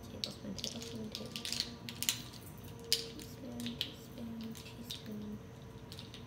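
A ring of measuring spoons clicking and clattering against each other as they are turned over by hand, many small irregular clicks.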